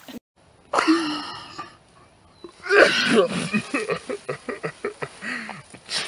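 A woman sneezing, her nose tickled with a piece of hay: a loud sneeze about a second in, another loud burst near the middle, then laughter in quick bursts.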